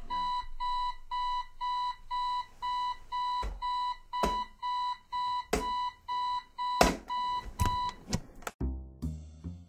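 Digital alarm clock beeping: a high, steady electronic beep repeating about three times a second, stopping about eight seconds in. A few loud thumps sound during the later beeps.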